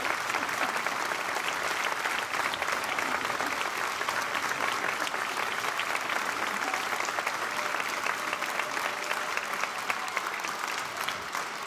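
A large audience applauding steadily: a dense, sustained clatter of many hands clapping, beginning to die down at the very end.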